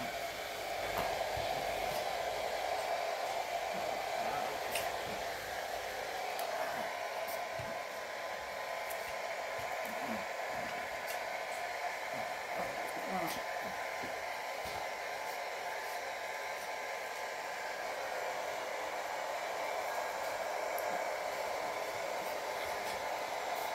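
Hair dryer blowing steadily, with a few faint ticks over it.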